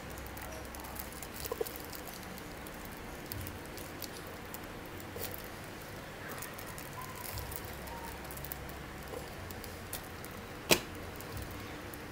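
Faint crinkling and small ticks of a thin, wet plastic bag being handled as a mini heat bag sealer is slid along its edge, with one sharp click near the end.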